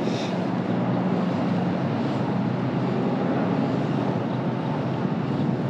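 Wind rumbling steadily on the microphone.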